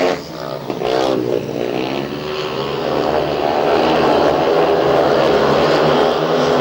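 Speedway bikes racing, their 500cc single-cylinder engines sliding up and down in pitch through a bend, then running on at a fairly steady pitch. The sound dips briefly just after the start.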